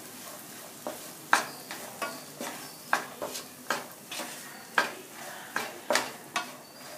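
Spoon stirring diced raw mango with spice powders and sesame oil in a nonstick frying pan, scraping and tapping the pan in irregular sharp strokes about twice a second.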